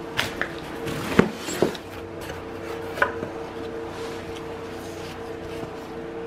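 A cardboard parts box being opened and handled, with a few sharp knocks and taps of the box and its contents, the loudest about a second in, and the rustle of a paper instruction sheet being pulled out. A steady low hum runs underneath.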